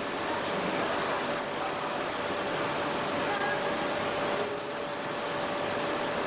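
Plastic film winding machinery running with a steady mechanical noise and a low hum. A faint high whine joins about a second in.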